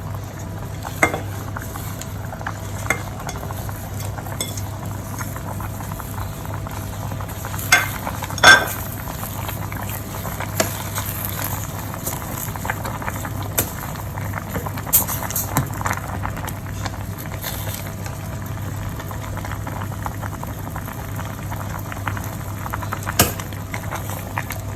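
Pot of soup bubbling on the heat while it is stirred with a utensil, which knocks against the pot now and then, the loudest knock about eight and a half seconds in.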